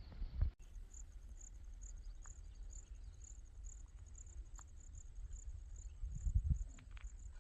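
Cricket chirping in short, evenly spaced high pulses about twice a second, over a low rumble that swells near the end. The sound changes abruptly about half a second in.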